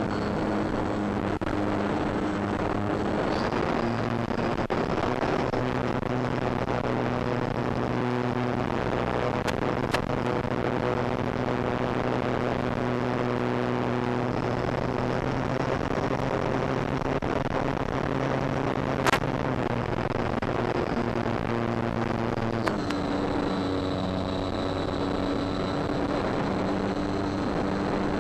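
Onboard sound of a Durafly Tundra RC plane's electric motor and propeller: a steady drone over wind hiss. Its pitch steps to a new level a few seconds in and again near the end as the throttle changes. Two sharp clicks break in, the louder one about two-thirds of the way through.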